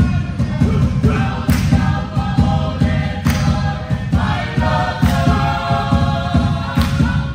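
Samoan group song: many voices singing in harmony over a dense low beat, with a sharp accent about every two seconds, accompanying a taupou's solo dance.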